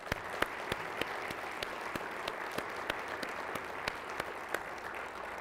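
Audience applauding steadily, many hands clapping, with a few louder single claps standing out.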